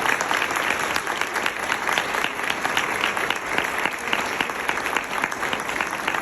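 An audience applauding steadily, many hands clapping at once, as a standing ovation for a newly installed president.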